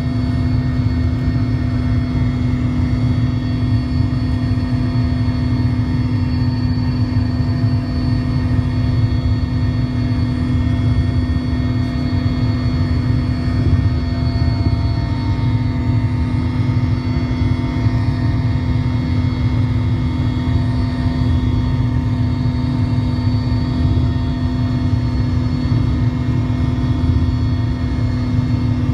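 Cabin noise inside a Mil Mi-17 helicopter in flight: the steady, loud drone of its twin turboshaft engines, rotor and gearbox. A strong constant hum sits over a heavy rumble, with several fainter steady whining tones above.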